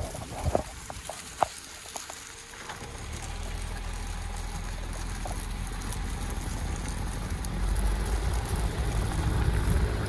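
A car driving slowly across a stubble field: a steady low rumble of engine and tyres over rough ground that builds from about three seconds in and grows louder toward the end, after a few clicks and knocks near the start.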